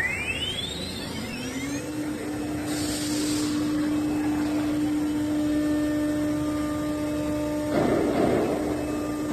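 An electric machine motor spins up over about two seconds to a steady high hum and keeps running. A short hiss comes about three seconds in, and a louder noisy burst comes near the end.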